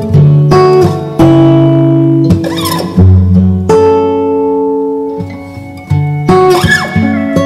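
Background music on guitar: plucked notes start one after another, each ringing out and fading.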